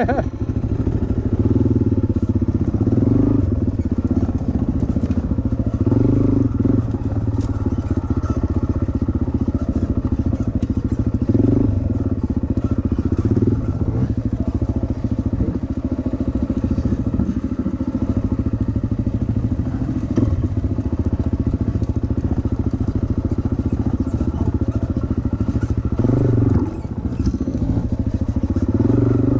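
Dirt bike engine running while ridden along a trail, the revs rising and falling several times with the throttle.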